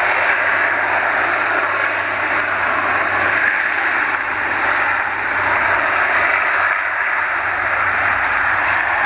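Lockheed Martin C-130J Super Hercules' four Rolls-Royce AE 2100 turboprop engines and propellers at takeoff power as the aircraft rolls down the runway. The sound is a loud, steady rushing noise with a low hum beneath it.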